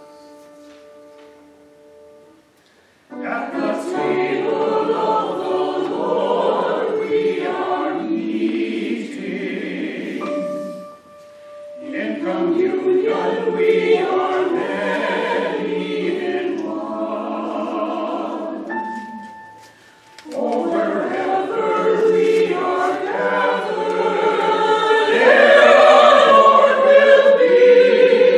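Mixed church choir of men and women singing an anthem in three phrases with short pauses between them; the last phrase is the loudest.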